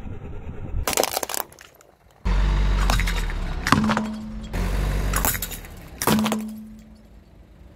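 Hard plastic toys cracking and snapping under a slowly rolling car tyre: a burst of cracks about a second in, then, over a low rumble, several more sharp cracks a second or so apart.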